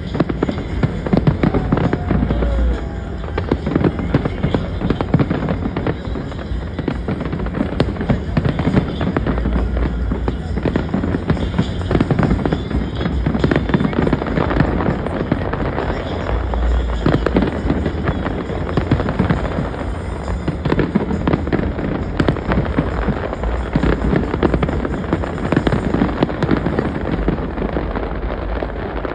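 Large fireworks display: a dense, continuous crackling and popping of bursting shells, with deep booms about every seven seconds.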